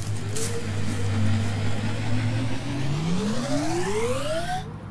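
Science-fiction flying-saucer sound effect: a steady low hum, then a rising whine from about three seconds in as the saucer flies off, cutting off suddenly near the end.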